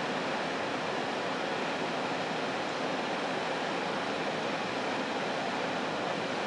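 Steady rushing noise with no change in level and no bird calls or other distinct sounds.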